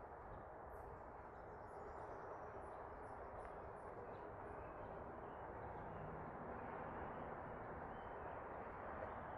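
A bird chirping: a quick run of short high notes in the first few seconds, over a steady low background rush.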